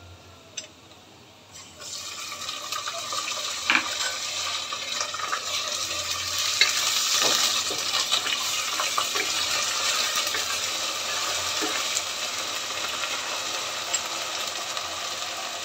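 Ginger-garlic paste frying in hot oil with browned onions: a steady sizzle and crackle that starts about two seconds in, with a few knocks of a wooden spoon stirring in the pot.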